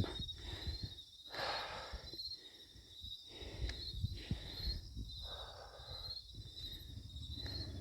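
Insects trilling steadily in a high, continuous pulsing band. Over it come a few soft, short spells of noise close to the microphone.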